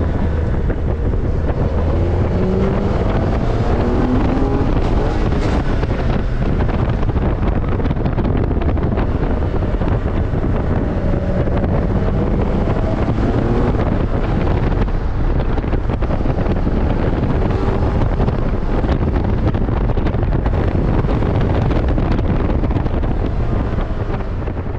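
Morgan Super 3's three-cylinder engine running on the move, its pitch rising a few times as it pulls, under heavy wind buffeting on the microphone in the open cockpit.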